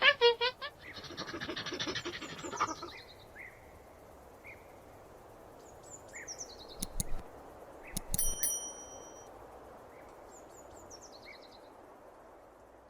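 Monkey chattering and screeching in a rapid run of shrill repeated calls for about the first three seconds, then a steady jungle-like background with scattered faint chirps, a couple of sharp clicks, and a few short descending calls.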